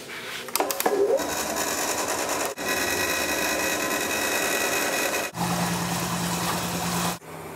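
Electric transfer pump running, moving whiskey wash through a hose into the copper still pot, with a steady motor whine and the rush of liquid. The sound changes abruptly a few times, and one stretch carries a low steady hum.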